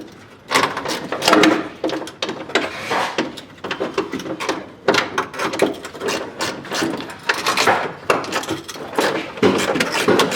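Irregular knocking, scraping and rattling as car body parts and tools are handled, with no steady machine running.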